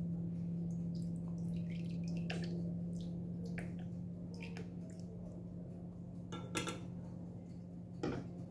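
Lemon juice dripping from a plastic squeeze bottle into a metal spoon over a saucepan, with faint small clicks and a couple of sharper clicks of the spoon near the end, over a steady low hum.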